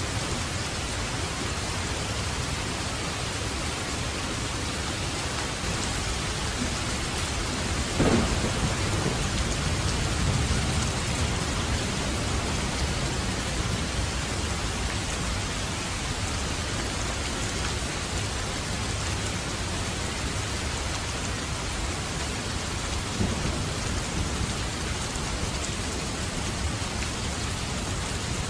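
Heavy rain falling steadily, with a sharp thunderclap about eight seconds in that rolls on as a low rumble for a few seconds, and a fainter crack later on.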